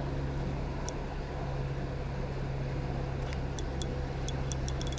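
A steady low mechanical hum, and from about three seconds in, a quick run of light clicks, about four or five a second, from a spinning reel being cranked to bring in a hooked bluegill.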